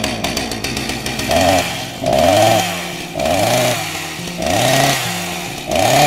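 Chainsaw running and revving up and down five times, about once a second, with a steady idle between the revs.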